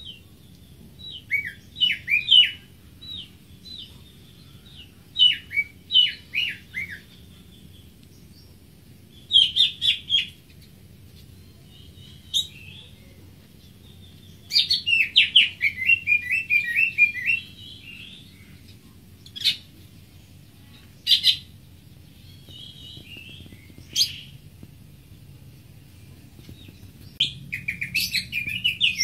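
Greater green leafbird singing in short bursts of quick, high, descending notes and trills, with pauses between phrases and one longer run of notes about halfway through.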